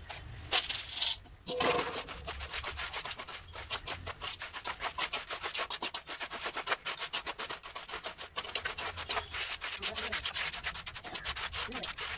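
A small hand trowel scraping and stirring a wet concrete mix of cement, sand and gravel in a shallow mixing pan, in rapid repeated strokes.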